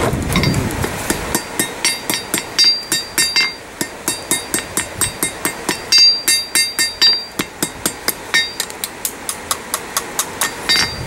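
Blacksmith's hand hammer striking red-hot metal on a steel anvil in quick repeated blows, about three or four a second, each with a short bright ring. The blows start about a second in and ease off briefly midway. The smith is drawing the nose of a forged fish-shaped bottle opener down to a point.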